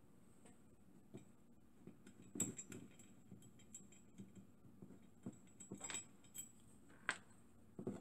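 Faint clicks and light metallic clinks from handling a small brass model steam engine: its brass boiler is gripped and lifted from the wooden base and a small fitting is set down on the workbench. The sharpest clicks come about two and a half seconds in and again near seven seconds.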